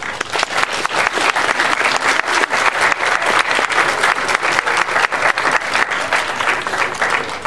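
Audience applauding: dense, steady clapping from many hands that cuts off suddenly at the end.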